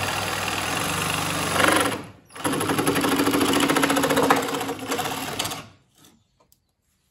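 Ridgid reciprocating saw with a metal-cutting blade sawing through a plastic fan held in a vise. It cuts for about two seconds, stops briefly, runs again for about three seconds, then stops.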